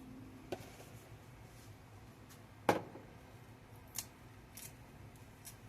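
A few scattered light clicks and knocks of kitchen handling, the loudest about two and a half seconds in and another about a second later.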